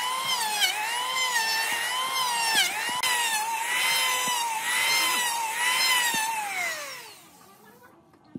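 Electric hand planer shaving bark off a log. Its motor whine dips in pitch each time the blades bite into the wood and recovers between strokes. Near the end it is switched off and the whine falls away as the cutter spins down.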